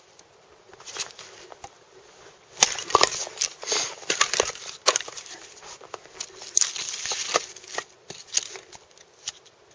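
Gedore Ochsenkopf OX 235 hatchet splitting firewood on a chopping block: a series of sharp knocks and cracks as the blade strikes and the wood splits, mixed with the clatter of split pieces tossed onto a woodpile.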